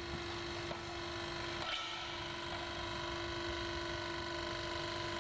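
Hydraulic unit of a rail pressure-welding machine running with a steady whine during trimming of the weld upset, with a couple of light knocks about a second in.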